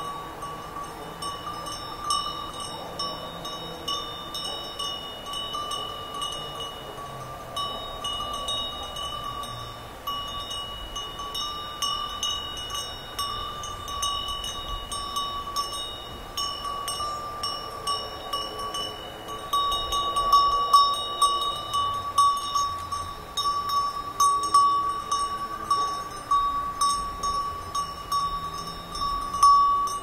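Many sheep bells clinking and ringing without pause as a flock grazes. The clinks are irregular and become louder and busier in the last third.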